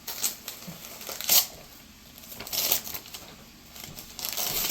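Gift wrapping paper being torn and crumpled in several short rustling bursts as a taped present is unwrapped, the loudest tear about a second in.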